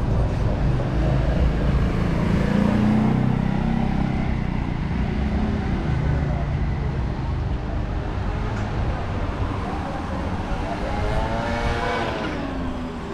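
Motorcycle engine running as it passes along the street, loudest a few seconds in, over general road traffic noise.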